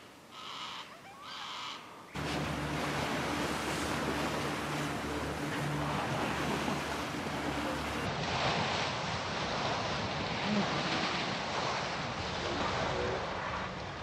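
Faint calls of yellow-tailed black cockatoos for about two seconds, then a boat's motor running at speed over choppy sea, with a low steady engine hum, rushing and splashing water and wind on the microphone.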